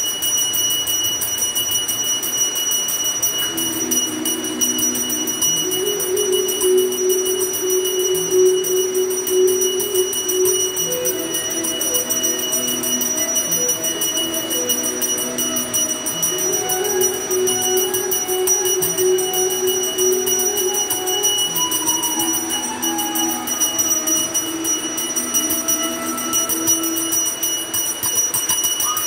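A brass puja hand bell rung rapidly and without a break, its ringing steady throughout. From about four seconds in, a slow devotional melody moves up and down over it.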